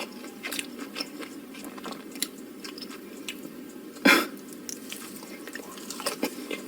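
A person eating close to the microphone: chewing and biting with small wet mouth clicks. There is a louder bite or slurp about four seconds in.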